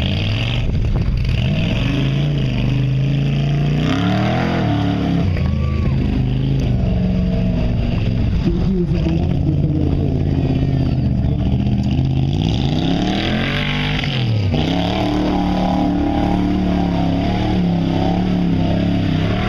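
Engine of a tube-frame off-road buggy revving up and down as it climbs through mud and rock obstacles. Its pitch rises and falls several times in swoops a few seconds apart.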